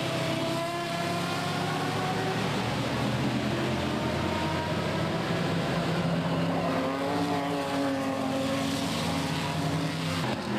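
Several vintage sports racing cars, Shelby Cobras among them, running at speed through a corner with their V8 engines at high revs. The overlapping engine notes rise and fall as the cars pass.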